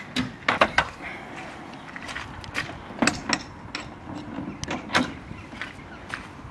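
Latches and bolts on a Cheval Liberté horse trailer's doors being worked open: a series of sharp knocks and clicks, three in quick succession in the first second, then more, one at a time, around the third and fifth seconds.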